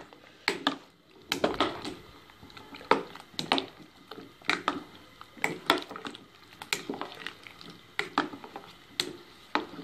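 A spoon stirring sliced turnips in water in a stainless steel pot, knocking and scraping against the pot's side in irregular clicks.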